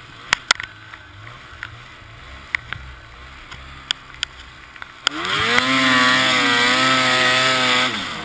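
Ski-Doo XRS snowmobile's 800 E-TEC two-stroke twin running at low throttle with scattered sharp clicks. About five seconds in it revs up quickly, holds a high, steady pitch for about three seconds, then drops back near the end.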